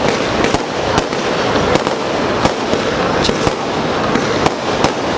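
Aerial fireworks going off in quick succession: sharp bangs about twice a second over continuous dense crackling.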